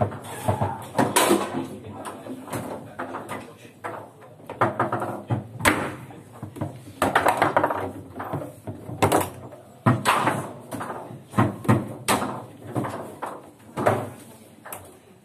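Table football in play: irregular sharp clacks and knocks of the ball being struck by the plastic figures and hitting the table walls, and of the rods banging, coming in quick runs of several hits.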